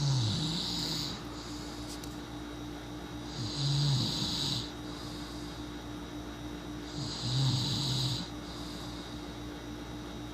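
A person snoring in their sleep: three snores about three and a half seconds apart, each about a second long, a low buzz with a breathy hiss.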